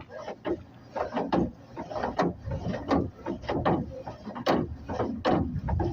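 Spare tire hoist being cranked with a tire iron: a string of irregular ratcheting clicks and grinding strokes from the winch mechanism. The hoist is a used salvage-yard part that is stiff enough to need WD-40.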